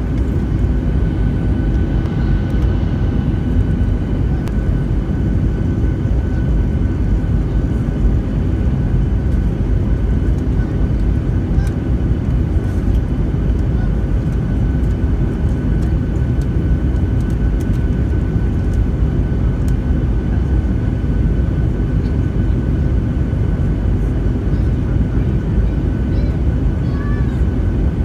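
Steady cabin noise inside a jet airliner in flight, heard from a window seat beside the wing-mounted turbofan engine. It is a loud, even low rumble with a steady high engine whine on top.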